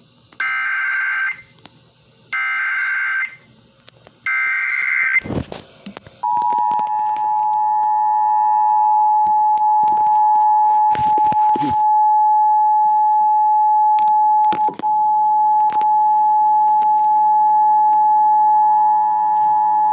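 Emergency Alert System signal: three short bursts of the screeching digital SAME header tones, then the steady two-tone EAS attention signal, held without a break, with a few brief crackles and dropouts.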